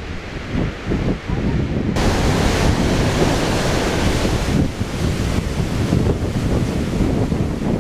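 Roar of a large waterfall in heavy flow, heard close to where it plunges, with wind buffeting the microphone. About two seconds in the roar gets suddenly louder and brighter, then holds steady.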